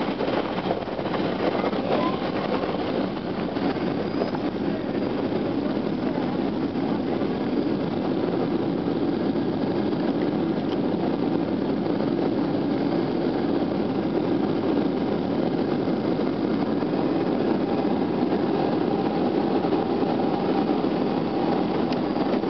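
Steady cabin noise of a Boeing 737 airliner rolling along the runway after touchdown: engine noise and wheel rumble at an even level throughout.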